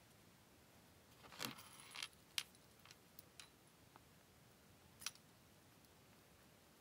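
Small metal chain links of a handmade sterling silver chain clinking and jingling as the chain is picked up and handled: a short jingle a little over a second in, then a few separate light clicks, the last about five seconds in.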